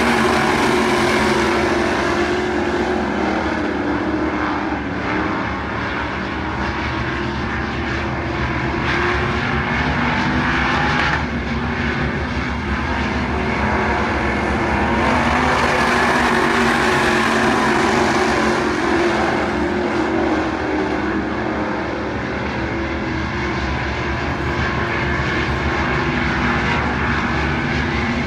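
A pack of WISSOTA Midwest Modified dirt-track race cars running laps together, their V8 engines droning loudly. The sound swells and fades as the field passes, loudest about halfway through.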